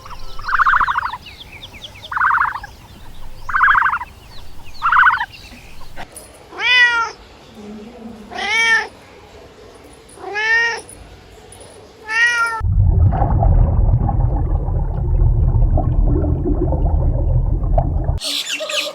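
Domestic cat meowing, five drawn-out meows that each rise and fall in pitch, after four shorter, clipped calls. In the last third a loud, low, rough rumbling sound takes over and then stops abruptly just before the end.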